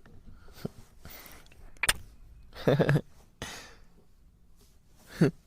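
A man breathing close to the microphone, with a sharp click about two seconds in and two short low wordless murmurs, the second falling in pitch near the end.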